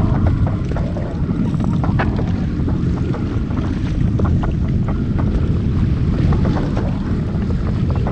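Wind rumbling on the microphone over wave noise from a jetski drifting on choppy open sea, with scattered small clicks and splashes.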